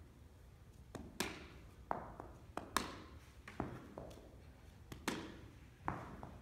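Baseballs thrown in short hops knocking on the turf and being scooped into a leather glove: a string of sharp knocks, several in close pairs, about one a second, the louder ones followed by a short echo.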